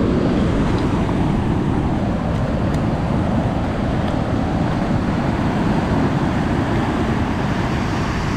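Wind noise on the microphone over breaking surf and waves washing up a sandy beach, a steady loud rush.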